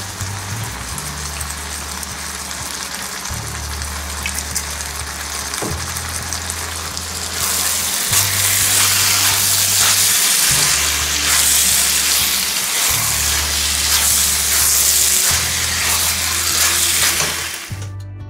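Chicken and cauliflower stir fry sizzling in a hot pan, over background music with a steady bass line. The sizzle grows louder about halfway through and cuts off suddenly near the end.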